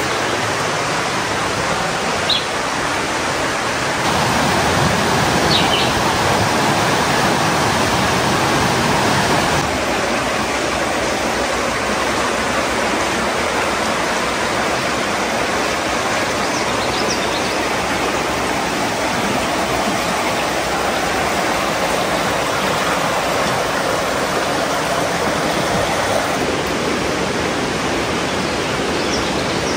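Steady rush of river water flowing over rocks, with a few faint bird chirps.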